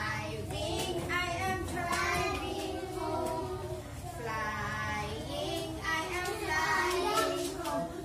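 A group of young children singing a religious action chorus together in unison.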